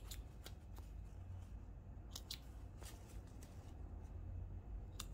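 Stitches of a blazer's lining seam being snipped with small scissors and pulled open: a few faint, scattered sharp snips and clicks with light rustling of the lining fabric.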